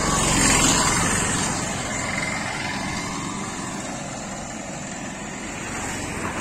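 A motorbike engine running alongside, mixed with wind and road noise on a moving phone's microphone. Loudest about half a second in, then easing off.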